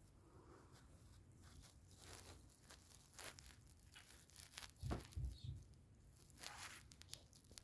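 Faint rustling and scattered small clicks, with a soft low thump about five seconds in and a short hiss a little later.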